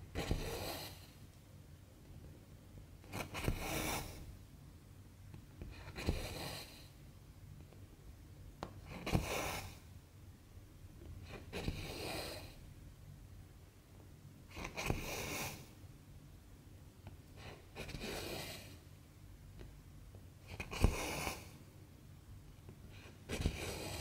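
Cotton embroidery thread being drawn through 11-count cross-stitch fabric, about one stitch every three seconds, nine in all. Each stitch is a short rasp of thread, several starting with a sharp tick as the needle pierces the cloth.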